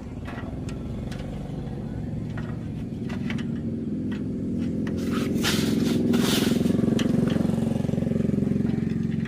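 An engine running steadily. About halfway through it gets louder for a couple of seconds, with a rushing hiss and a few clicks, then eases back a little.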